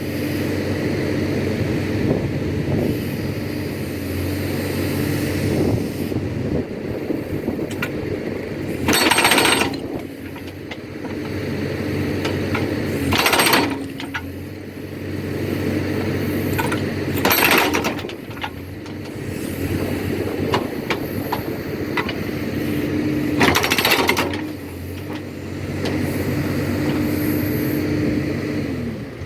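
Backhoe-mounted hydraulic rock breaker hammering, over the backhoe's engine running under load, with four short, loud bursts of noise spread through.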